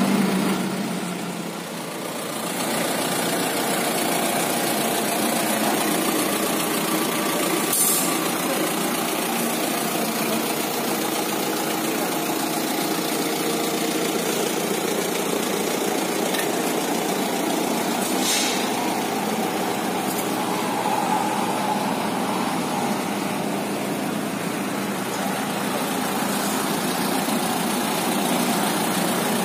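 A vehicle engine idling steadily, with a couple of brief, sharp noises partway through.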